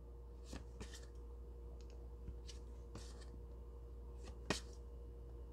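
Faint handling of tarot cards: a few brief soft swipes and taps as cards are slid and flipped, the sharpest about four and a half seconds in, over a steady low hum.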